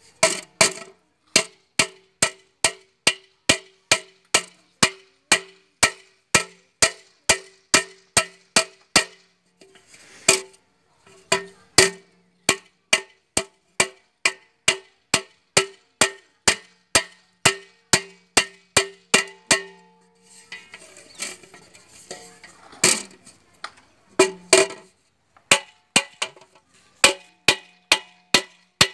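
A hammer tapping nails through a leaking metal dekchi (cooking pot) to fix an aluminium sheet patch over its bottom. The blows come evenly, about two to three a second, and each leaves the pot ringing briefly. They break off for a few seconds about two-thirds of the way through, then resume.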